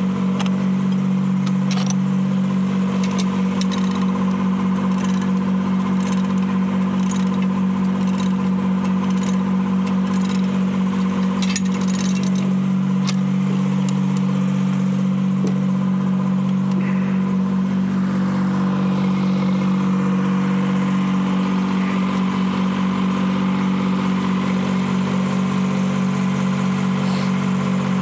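Detroit Diesel 3-71 two-stroke three-cylinder diesel running steadily at working speed as the sawmill's power unit, with scattered light knocks over it.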